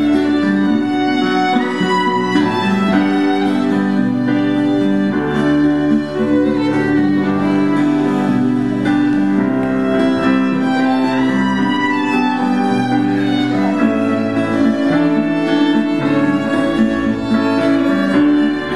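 Violin playing a melody in an instrumental passage, over acoustic guitar and keyboard accompaniment from a small live band.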